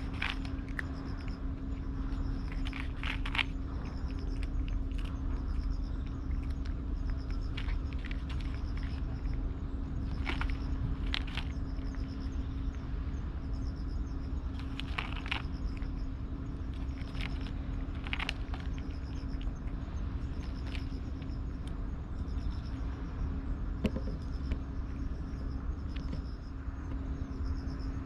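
Steady low rumble and a constant hum, with insects chirping in quick, evenly repeated pulses and a dozen or so short, irregular clicks.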